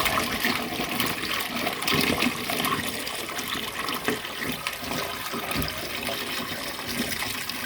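Water splashing and sloshing, with irregular small splashes and drips, as wet pounded greens are worked in water.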